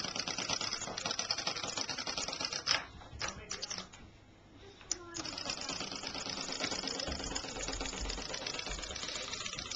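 Wind-up Christmas pudding toy's clockwork running as it hops across a wooden table, a fast, even clatter of clicks. It falls quiet for about two seconds a few seconds in, then starts up again.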